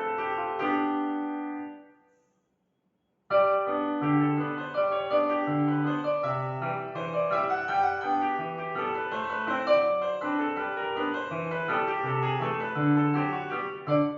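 Piano music. A phrase dies away about two seconds in, then after a second of silence the piano starts again with a fuller passage over low bass notes.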